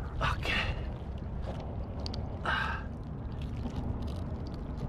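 Two short, sharp breaths from a person straining, about a quarter second in and again about two and a half seconds in, over a steady low rumble.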